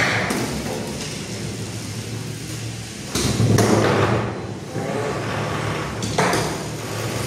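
Antweight combat robots fighting: a steady whir from the spinning drum weapons, with loud clattering hits, a long burst of impacts about three seconds in and another sharp hit about six seconds in, as the robots strike each other and the arena's clear plastic walls.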